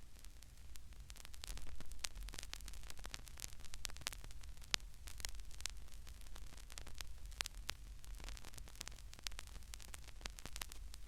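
Vinyl record surface noise: irregular crackle and sharp pops over a steady low hum, with no clear train sound left in it.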